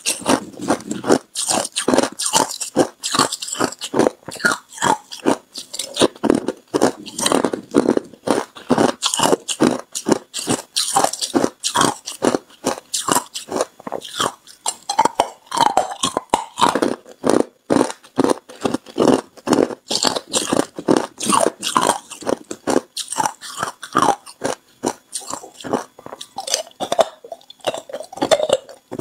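Hard ice cubes being bitten and chewed: a steady run of sharp, crackling crunches, two or three a second.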